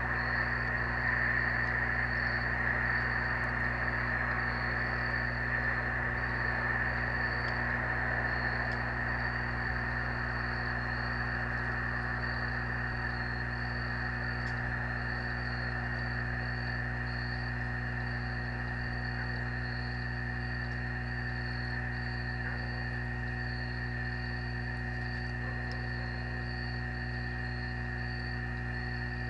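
A steady insect chorus with a higher, regularly pulsing chirp, over a constant low electrical hum.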